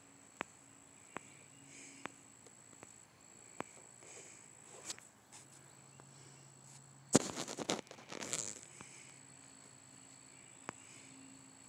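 Low background hiss with a thin, steady high-pitched whine. Scattered single light clicks sound through it, and a brief loud rustling burst of handling noise comes about seven seconds in.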